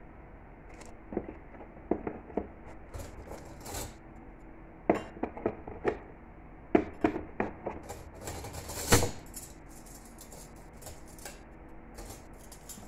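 Metal cutlery clinking and knocking as pieces are set one at a time into the moulded tray of a cutlery case, in irregular clusters of small taps, the loudest about nine seconds in.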